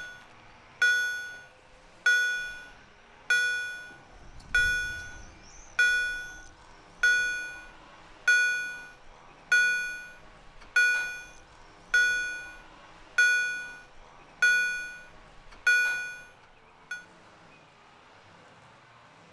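Railroad level crossing warning bell ringing, one clear decaying strike about every 1.2 s, signalling that the barriers are being operated. It stops about 16 s in, with one faint last strike about a second later.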